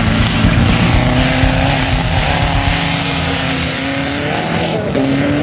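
Dune buggy's engine running at high revs as it spins and slides on loose dirt.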